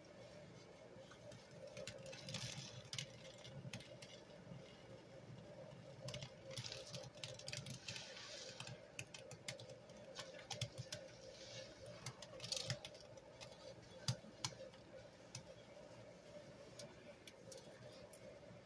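Soapy sponge squeezed and pressed in a tub of thick suds: soft wet squelches and irregular crackling clicks of foam bubbles, busiest in the middle of the stretch.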